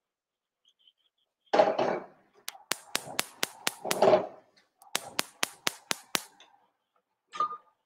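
Gas hob's electric spark igniter clicking rapidly, about four clicks a second, in two runs as the burner is lit, after a clatter of the pan being set on the hob.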